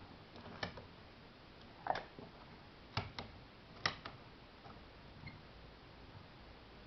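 A handful of short, sharp metallic clicks and taps from handling a small vise, its sliding handle and a brass lock cylinder set in its jaws. There are about six of them in the first four seconds, some in quick pairs.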